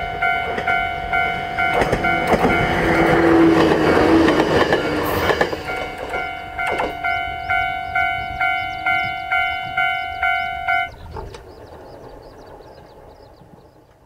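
Level-crossing warning bell ringing electronically at about two strikes a second, while a Jomo Electric Railway 700-series train passes with loud wheel and rail clatter in the first few seconds. The bell stops about eleven seconds in, and the crossing's Nippon Signal EM1010A electric barrier arms lift with a quieter mechanical sound that fades away.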